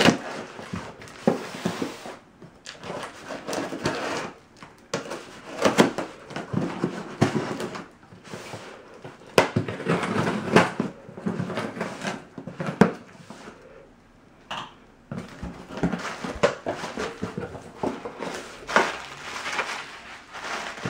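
A cardboard shipping box and its packing being opened and handled by hand: irregular rustling and scraping of cardboard with a few sharp clicks.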